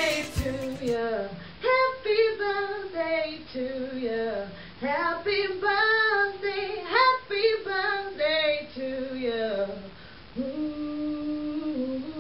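A woman singing a melody solo, unaccompanied, closing on a long held note.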